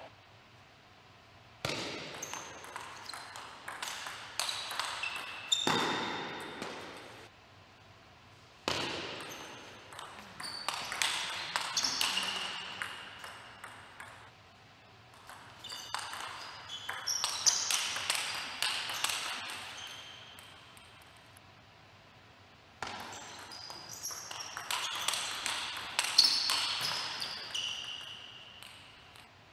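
Table tennis ball clicking back and forth in fast rallies, each hit off a racket or the table a sharp tap with a short high ring. There are four rallies, with short quiet gaps between them.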